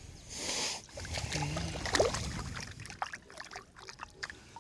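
Water splashing and sloshing at the side of a fishing boat, with scattered light knocks and clicks.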